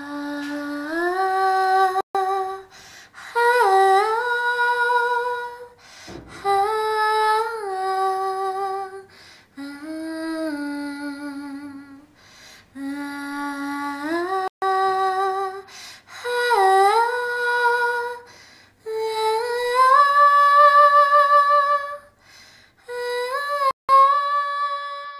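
A woman's wordless vocal melody in slow phrases of two to three seconds, separated by short breaths. The voice slides up into notes and holds the longer ones with vibrato.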